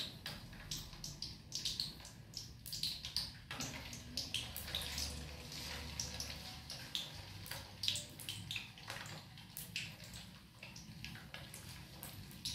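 Batter-coated boiled quail eggs frying in hot oil: a steady sizzle with many small crackles and pops.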